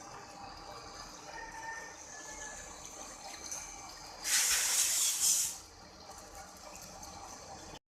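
Lathe cutting a heavy workpiece with two tools at once: a steady hiss with faint thin whining tones. About four seconds in, a loud hiss lasts just over a second; the sound cuts off suddenly near the end.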